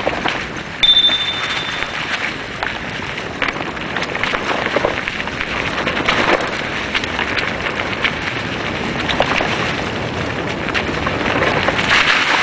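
Mountain bike tyres rolling fast downhill over dry leaves and rocky dirt trail, a steady crackling crunch with wind noise on the microphone. A brief high squeal about a second in.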